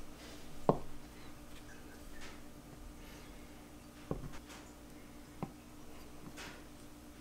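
Kitchen knife cutting through a block of scone dough and knocking on a plastic cutting board: a few sharp taps, the loudest about a second in, with soft rustling of dough and hands between, over a faint steady hum.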